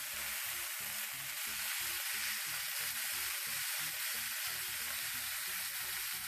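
Chicken pieces searing skin side down in hot cooking oil in a skillet, sizzling steadily.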